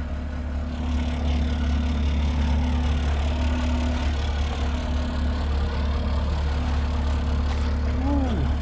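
Engine idling steadily, with a short rising-then-falling pitched sound near the end.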